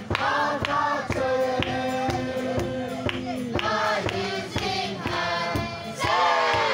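A group of voices singing a song together over a steady, regular beat.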